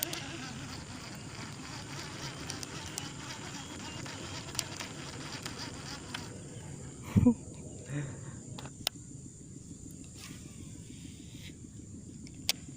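Steady high-pitched insect drone, with a few sharp clicks and a brief vocal sound about seven seconds in.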